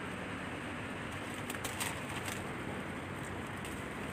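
Dry brush and twigs crackling a few times, about one and a half to two seconds in, over a steady background hiss.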